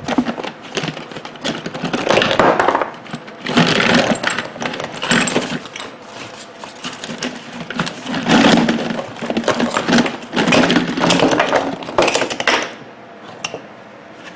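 Small plastic-and-metal microwave turntable motors clattering and rattling against one another as a container full of them is handled, in repeated bursts that stop near the end.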